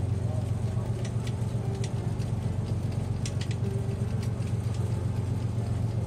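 Fishing boat's engine running steadily, with a scatter of short clicks and taps over it in the middle.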